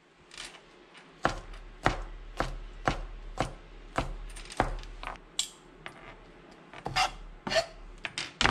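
Kitchen knife chopping garlic on a plastic cutting board: sharp knocks of the blade on the board about twice a second, starting a second or so in, with a short pause before a few last chops near the end.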